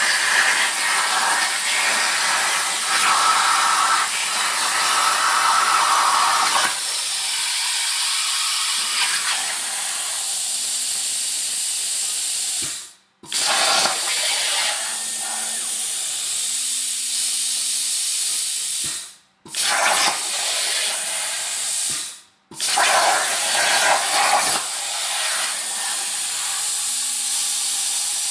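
CNC plasma cutting torch cutting stainless steel sheet, a loud steady hiss of the arc and air jet. The arc cuts off abruptly three times and restarts within a second, as the torch finishes one cut and fires on the next.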